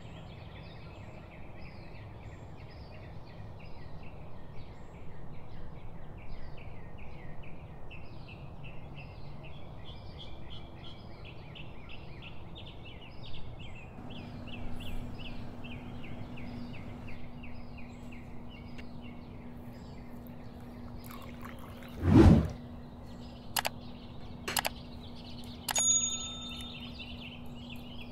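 Small birds chirping rapidly and continuously in the background, with a low steady hum coming in about halfway. Near the end there is a heavy thump, the loudest sound, then a few clicks and a short ringing clink.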